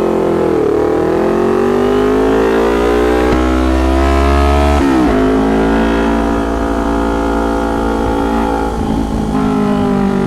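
Kawasaki Ninja 250 parallel-twin engine through a really loud aftermarket can exhaust, revving under way. The pitch climbs for about four seconds, falls sharply about five seconds in as the revs drop, then holds fairly steady before rising again near the end.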